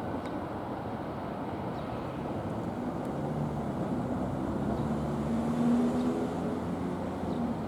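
Steady city street traffic noise, with a motor vehicle's engine hum building to a pass about six seconds in.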